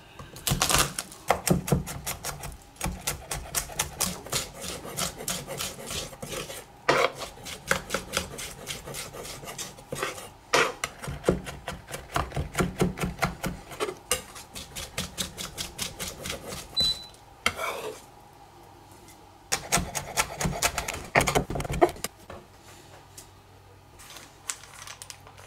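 Chef's knife chopping garlic and fresh herbs on a wooden cutting board: quick runs of blade knocks, several a second, with a short pause about three-quarters of the way through and sparser strokes near the end.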